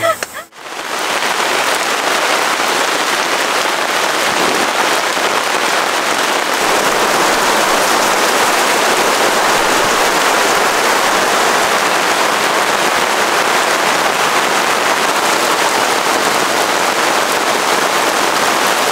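Heavy rain pouring down as a steady, dense hiss, starting abruptly about half a second in.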